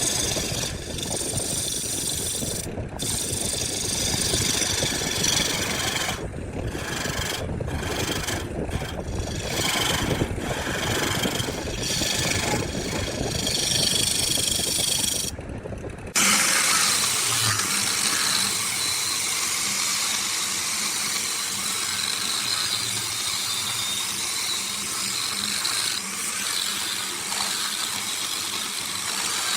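Motor-driven machinery running, a dense engine-like noise with brief dropouts that switches abruptly about sixteen seconds in to a thinner, higher hissing machine sound.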